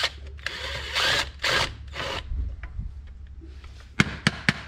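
Four short bursts of a power tool in quick succession, then a rapid series of sharp metal knocks near the end.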